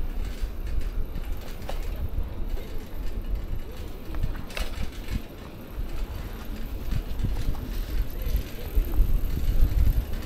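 Riding a city bicycle on a paved street: a steady low rumble of tyres on asphalt and wind on the action camera's microphone, with scattered small clicks and rattles.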